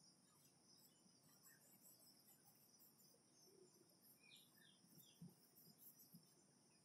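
Near silence with a faint, steady high chirring of crickets. A few faint short chirps come about four seconds in, and a soft tap about five seconds in.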